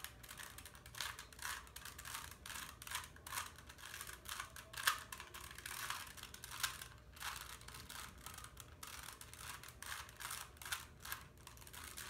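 Rubik's Cube layers turned by hand in quick succession: a run of rapid, irregular plastic clicks and clatter, several a second.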